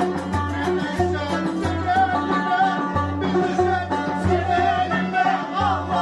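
Turkish folk band playing a Black Sea dance tune (oyun havası). A davul bass drum beats heavy strokes in an uneven pattern under a wavering melody from the clarinet and bağlama.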